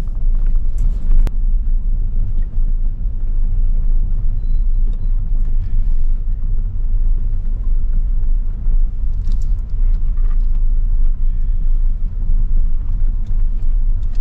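Car driving slowly, a steady low rumble of engine and tyres heard from inside the cabin.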